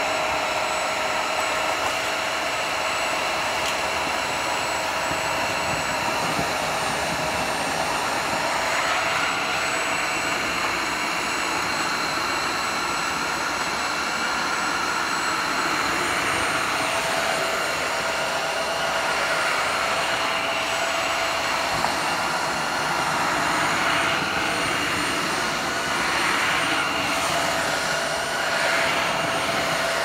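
Tineco Floor ONE S5 cordless wet-dry floor cleaner running steadily, a motor whine with the brush roller head going over a hard floor, taking up a wet spill and dry crumbs.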